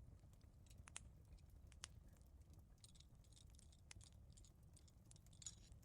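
Faint fireplace crackling: scattered small pops and snaps over a low, steady rumble of the fire.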